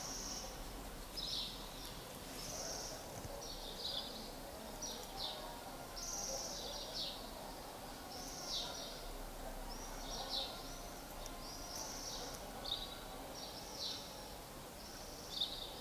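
A small bird chirping in the background, giving short high chirps about once a second, some falling in pitch, over faint room noise.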